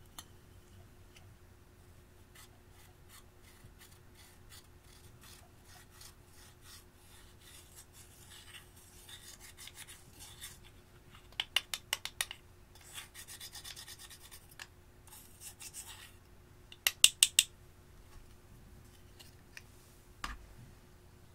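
Scraping and crumbling of pressed shimmer eyeshadow being dug out of its pan with a pointed tool. Two quick runs of loud, sharp taps, one around halfway and one near the end, and a single duller knock just before the end.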